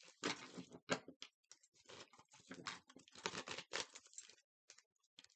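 A deck of tarot cards being shuffled by hand: cards flicking and slapping against each other in quick, irregular clicks, thinning to a few taps near the end.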